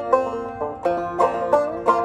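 Banjo played clawhammer style: a brisk old-time melody of down-struck notes and brushed strums, with strong accented strikes about three times a second.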